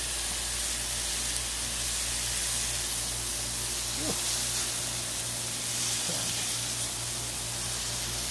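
Beef smashburger patties sizzling steadily on a hot Blackstone flat-top griddle.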